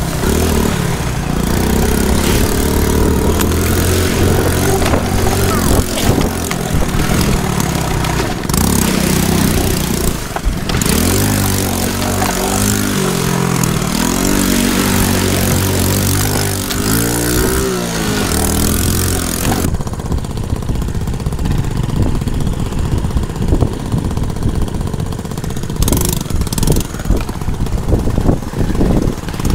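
Honda C90's small single-cylinder four-stroke engine running under way on a rough trail, its pitch rising several times as it is revved and pulls through the gears. A hiss of wind over the microphone drops away about twenty seconds in, and a few sharp knocks come near the end.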